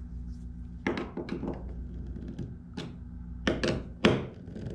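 Knocks and clicks of a hand screwdriver working the flex wing mounting screws against the plastic kayak hull and brackets: a handful of short knocks, grouped about a second in and again near the end, where the loudest falls.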